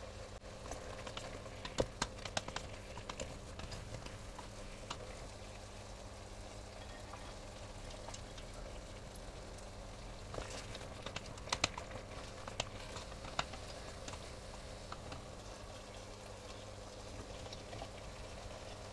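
Broth bubbling steadily at a boil in a saucepan on the stove, with scattered sharp clicks and knocks of a wooden spatula and chopped vegetables against a steel cooking pot, clustered about two seconds in and again around ten to thirteen seconds in.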